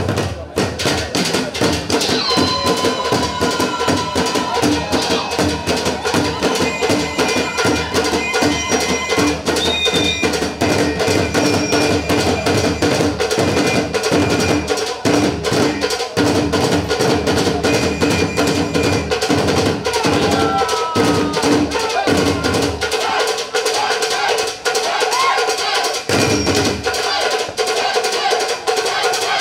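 A drum ensemble beats tall upright drums with wooden sticks in a fast, dense rhythm, with sharp stick clicks among the drum strokes. The deep drum strokes drop out for a few seconds near the end, then return.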